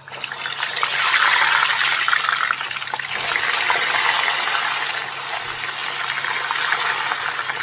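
Green plantain pieces dropped into hot oil in a deep pot, frying with a steady sizzle. The crackling is strongest in the first few seconds and then settles.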